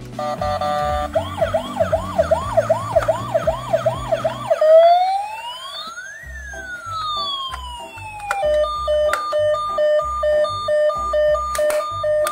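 Toy ambulance's electronic siren cycling through its tones: a fast yelp of quick rising sweeps, then one slow rising and falling wail, then a quick hi-lo two-tone beep. A low music beat runs underneath.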